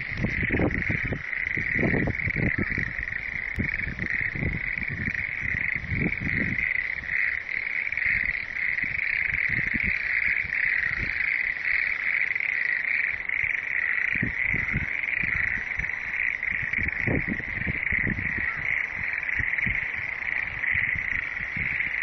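A chorus of frogs calling continuously, a dense, steady high-pitched trill of many voices. Irregular low rumbling buffets on the microphone come and go through it.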